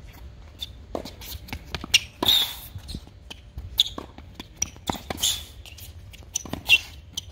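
Tennis rally on an outdoor hard court: sharp knocks of the ball off the rackets and the court, with shoe scuffs and squeaks. The loudest hit comes near the end, from the near player's forehand.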